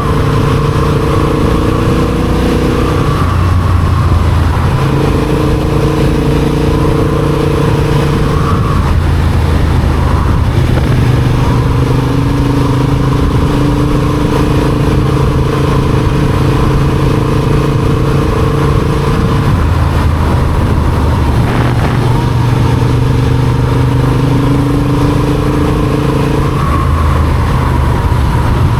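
Motorcycle engine running steadily under way, its pitch holding for a few seconds at a time and then stepping up or down, over a steady rush of noise.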